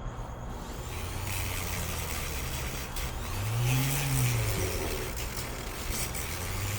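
VEVOR 380W flex shaft rotary grinder's motor running, with its speed set by a foot pedal. About halfway through it speeds up and then slows back down.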